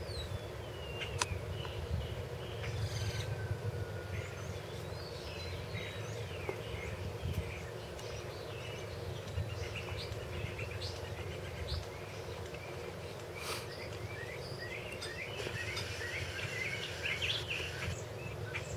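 Songbirds chirping and whistling on and off over a steady low background hum, with a busier run of chirps near the end.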